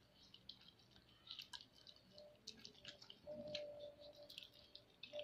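A dog licking and mouthing a mango held in a hand: faint wet smacking and clicking sounds, with a short steady tone a little over three seconds in.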